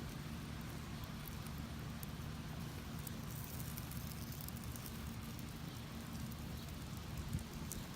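Wind buffeting the microphone as a steady low rumble, with faint crackling from a fire burning the plastic of an old truck horn.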